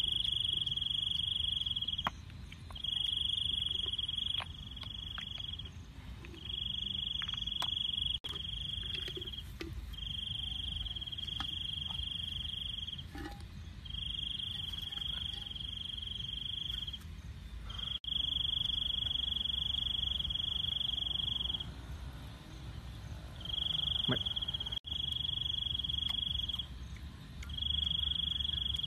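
Cricket trilling on one high, steady pitch in repeated runs of two or three seconds, broken by short pauses. Faint clicks and knocks of oyster shells and a clay pot being handled sound underneath.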